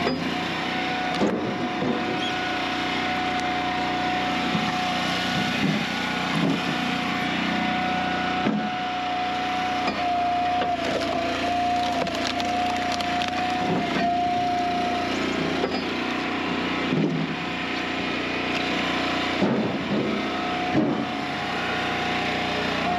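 Engine-driven hydraulic wood splitter running with a steady whine, while logs are pushed through and split, cracking and splintering at intervals.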